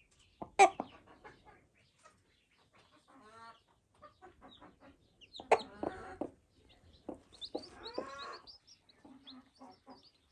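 Broody hen clucking in short, spaced calls, with her newly hatched chicks peeping in quick, high chirps that grow more frequent in the second half.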